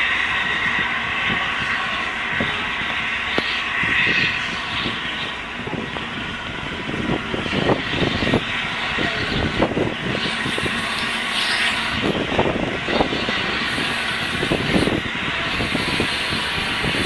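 BR Standard Class 8 Pacific No. 71000 Duke of Gloucester, a three-cylinder steam locomotive, moving slowly tender-first over a steady hiss of steam. From about seven seconds in, soft exhaust beats come at about two a second as it works.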